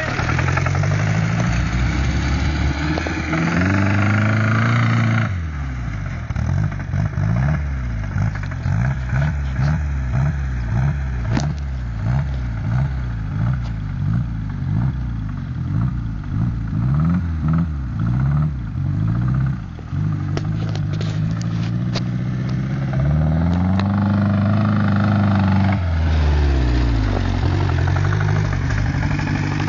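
Off-road buggy's engine revving as it drives on dirt. It climbs in revs early on and again from about two-thirds through, drops near the end, and in between rises and falls quickly and repeatedly, about one and a half times a second.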